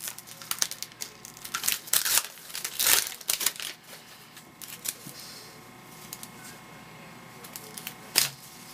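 Baseball card pack wrapper crinkling and tearing, with cards rustling as they are pulled out and handled, busiest in the first three seconds or so. Then quieter rustling as the cards are slid and fanned through in hand, with one sharp click near the end.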